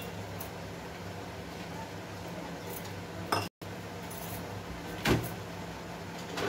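Light clinks and a knock of a small steel bowl and utensils handled on a stone kitchen counter, a sharp click a little after three seconds and a duller knock about five seconds in, over a steady low hum.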